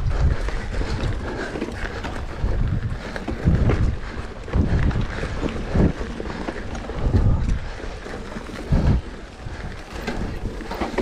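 Wind buffeting the microphone in uneven gusts, a rumbling push of air that surges every second or two, over a faint hiss.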